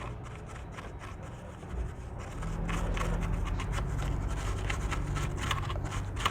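Wire brush scrubbing rust off the brake pad slide surfaces, a continuous rasping scrape of metal bristles on rusty steel. It is quieter for the first couple of seconds, then steadier and louder.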